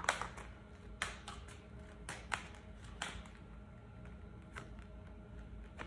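Tarot cards being shuffled by hand: a scattering of short, irregular clicks and slaps as the cards are cut and flicked together, fairly quiet.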